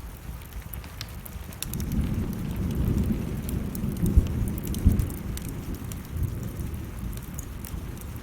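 A low roll of thunder that builds about two seconds in, peaks with two sharper cracks around four to five seconds, and dies away, over steady rain and the sharp crackle of burning wood.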